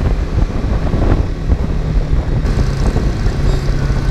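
BMW G310GS single-cylinder motorcycle engine running at a steady cruise, with wind rushing over the on-bike microphone.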